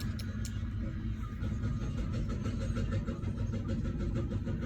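Bus engine running, a steady low rumble heard from inside the bus.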